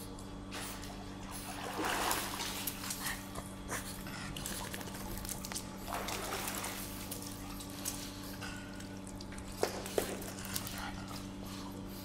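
Water splashing and trickling around a pug as it swims and comes out of a swimming pool onto the deck, with a couple of louder swells of splashing and a few sharp taps near the end. A steady low hum runs underneath.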